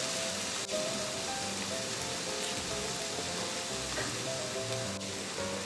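Beef steak cubes sizzling on an electric grill plate, a steady hiss, under soft background music with short melodic notes.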